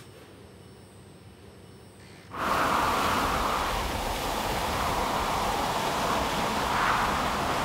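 Quiet at first, then about two and a half seconds in a pressurised spray suddenly starts and keeps up a loud, steady hiss as it blasts across a car's interior.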